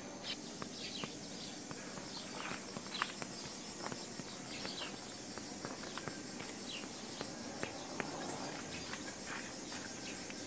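Farmyard background: small birds giving scattered short, falling chirps over a steady high insect buzz, with a few faint clicks and rustles.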